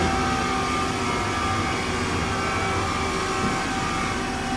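Mazak Multiplex W-200 CNC turning center running under power: the steady hum of its pump motors and cooling fans, with a few steady tones over it.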